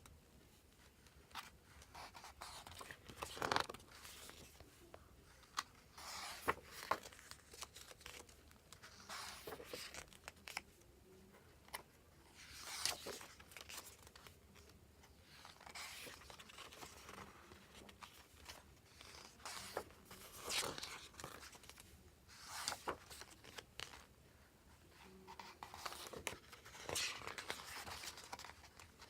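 Packaging being handled by hand: irregular rustling, crinkling and tearing noises in short bursts every second or two.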